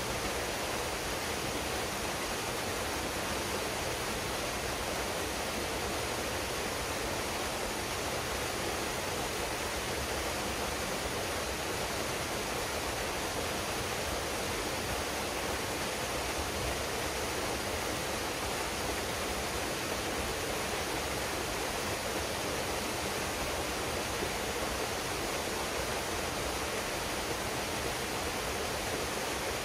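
Waterfall pouring into a pool, a steady, even rush of falling water with no breaks.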